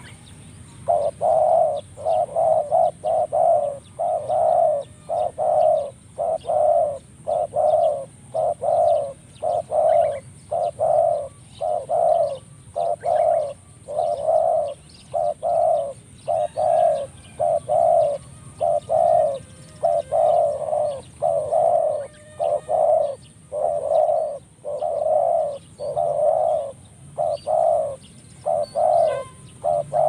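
Spotted dove cooing over and over, loud low coos coming one or two a second in short runs, beginning about a second in.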